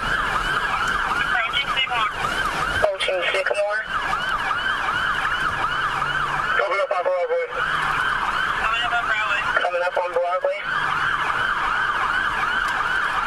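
Police car siren in a fast yelp, about four to five rising-and-falling sweeps a second. It breaks off three times for about a second each while a voice comes through.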